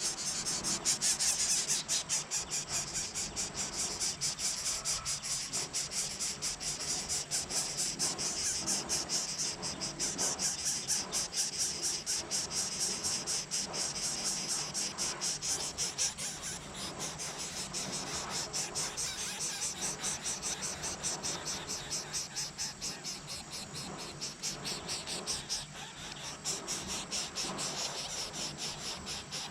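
Insects chirping steadily in a fast, even, high-pitched pulse, cricket-like; the chorus is louder in the first half and thins after about sixteen seconds.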